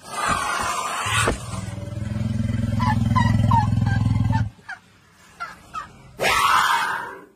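Asian elephant close to the microphone giving a deep, pulsing rumble for about three seconds. It is framed by loud breathy blasts of air, one at the start and another near the end.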